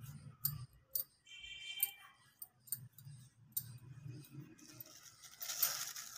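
Hands pressing and patting a rolled strip of paratha dough on a floured board: scattered faint taps and light clicks over a low hum, with a rustling hiss building near the end.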